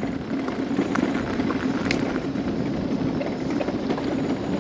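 Mobility scooter rolling along a gravel road: a steady crunch of tyres on loose gravel with a low motor hum underneath.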